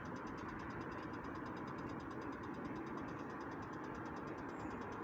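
Locomotive idle sound effect: a steady engine idle with a fast, even chatter on top that doesn't change.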